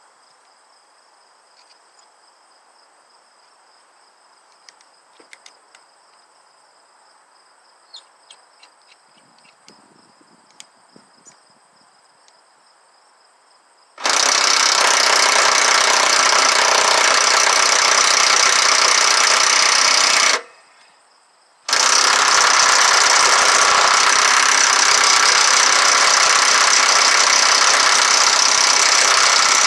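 Faint crickets and a few light clicks, then an impact gun hammering on a stuck wheel bolt in two long trigger bursts, about six and eight seconds, with a short stop between. The bolt does not break loose.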